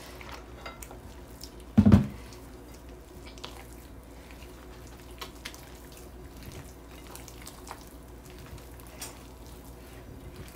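Hands kneading soft, wet dough in a glass bowl: faint wet squelching with small scattered clicks. One brief loud thud about two seconds in.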